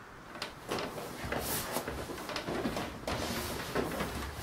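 Irregular rustling and soft knocks of a person shifting and moving about.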